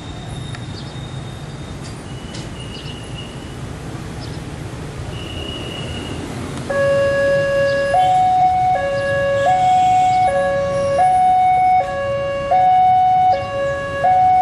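Low rumble of a passenger train pulling away, then, about seven seconds in, a loud two-tone hi-lo siren starts, switching steadily between a lower and a higher pitch, each held for under a second.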